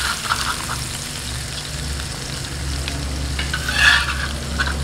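Metal spatula scraping and stirring fried spice paste around a wok, with light sizzling; one louder scrape about four seconds in.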